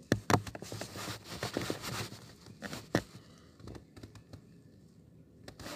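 Handling noise close to a tablet's microphone: irregular scrapes, rustles and sharp taps of the tablet rubbing and knocking against the inside of a cardboard box, busiest in the first three seconds and thinning out after.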